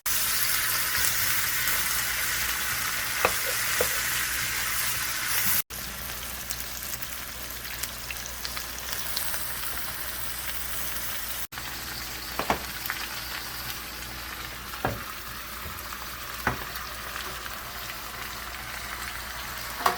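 Pork and innards sizzling as they fry in a pan, with a steady hiss and occasional sharp clicks of a utensil stirring against the pan. The sizzle is louder for the first six seconds, then breaks off briefly and carries on softer.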